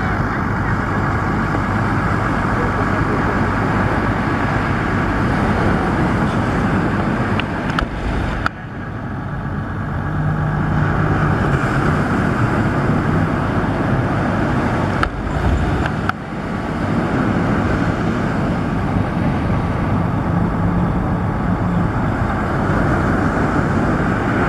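Steady roar of surf and wind on a beach, with a faint engine drone in places and two brief drops in the noise.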